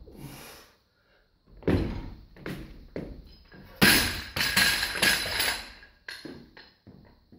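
A loaded barbell with bumper plates dropped onto the rubber floor mats after a lift: several heavy thuds, the loudest about four seconds in with a ringing metallic clatter of bar and plates, then smaller knocks fading near the end as it bounces and rolls.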